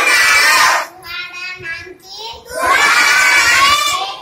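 A class of children loudly chanting a phrase in unison, twice, with a single child's voice speaking in between.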